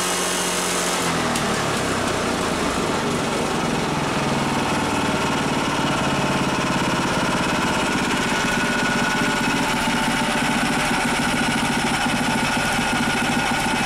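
Lifan KP460 single-cylinder four-stroke engine fitted with a PZ30 carburettor, running under a revs test: its pitch falls about a second in, then it runs steadily.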